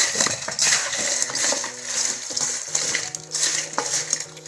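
Chunks of raw green mango being tossed and rubbed with salt by hand in a stainless steel bowl, the pieces knocking and scraping against each other and the bowl in irregular bursts, with background music.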